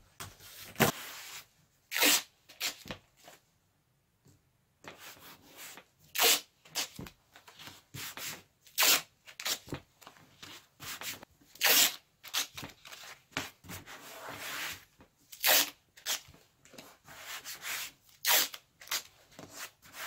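Paper masking tape pulled off the roll in short strips, torn and rubbed flat onto a foam seat cushion: a string of brief ripping and rubbing sounds, about one every second or two.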